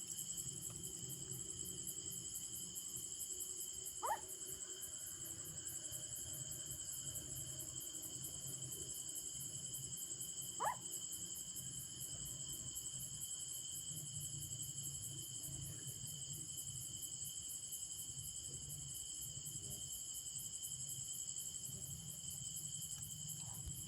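Crickets trilling steadily in a night insect chorus, with a low hum underneath. Two brief rising chirps cut across it, about 4 and 11 seconds in.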